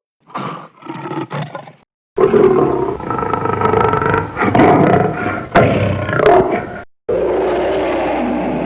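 Lion roaring, in several spliced sound-effect clips broken by short silences about two seconds in and about seven seconds in.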